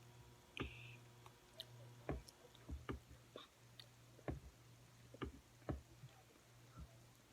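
Faint eating sounds: a dozen or so scattered small clicks and soft knocks, uneven in loudness, over a low steady hum.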